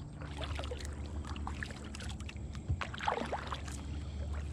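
Kayak being paddled: a double-bladed paddle dipping in and out of the water, with small splashes, drips and light knocks over a steady low hum.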